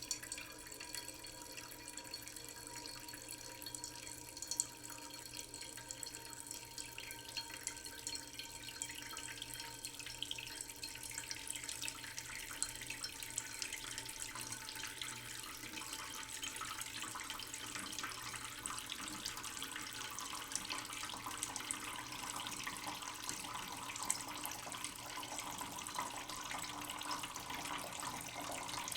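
Tap water running slowly into a cooking pot in a sink: a steady trickle and splash, with a faint ringing tone early on. The splashing grows brighter in the second half.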